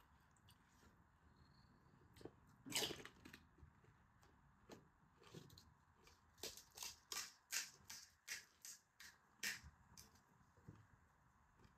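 Crisp pani puri shells crunching as they are bitten and chewed: one loud crunch about three seconds in, then a quick run of crisp crunches, about three a second, a little past the middle.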